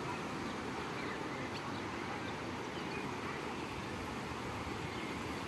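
Steady outdoor background noise with a few faint, short high chirps scattered through it.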